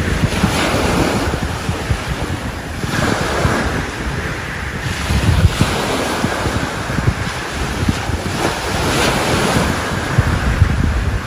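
Sea waves washing onto the beach in repeated swells, with wind buffeting the microphone.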